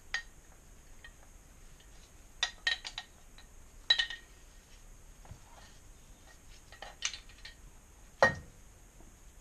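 Metal compressor parts clinking and knocking together as they are handled and turned over on a workbench: a few scattered clinks, then a heavier knock near the end as a part is set down.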